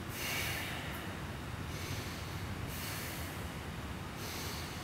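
A man breathing slowly and deeply, two long, soft breaths of about a second and a half each with short pauses between, and another starting near the end.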